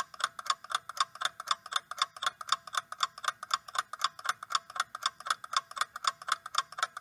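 Clock-tick sound effect counting down a quiz's answer time: quick, even ticking, several ticks a second.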